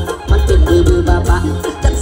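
Live Isan mor lam band music played loud through a PA system. A steady, heavy bass beat runs under a melodic line.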